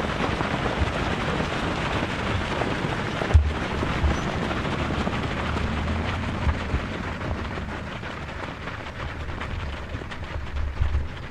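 Footfalls of a large pack of runners on a dirt path, a dense pattering that thins out over the second half as the pack goes by. Wind rumbles on the microphone, with one sharp knock about three seconds in.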